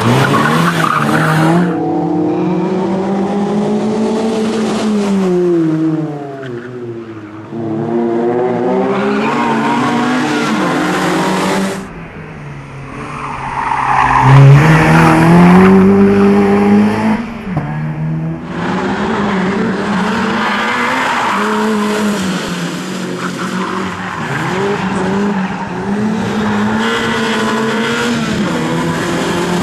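BMW E30 318is's four-cylinder engine under hard driving: revs climbing and dropping again and again as the car accelerates, lifts off and changes gear through a tight course, with a few brief dips where the throttle is closed.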